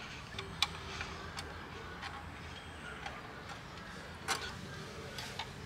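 Light, irregular clicks and ticks of a screwdriver working the small screws of a car stereo head unit's mounting bracket.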